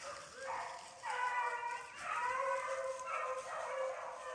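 A pack of beagles baying as they run a rabbit, several hound voices overlapping in a steady chorus. The cry is the sign that the hounds are on the rabbit's track.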